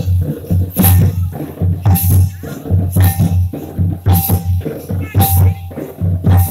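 Santali folk dance music: drums beating a repeating rhythm with a strong accent about once a second, each accent topped by a high rattling jingle.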